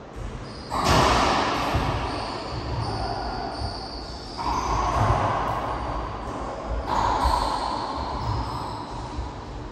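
Racquetball shots echoing in an enclosed court: three sudden loud bursts, each ringing on for about two seconds.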